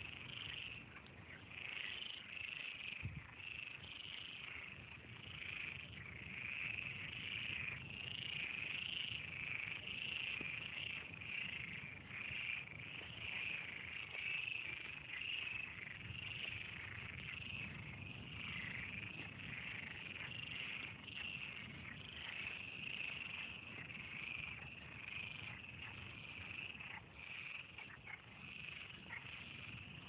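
A dense chorus of many frogs calling together, faint, steady and unbroken, swelling and easing slightly.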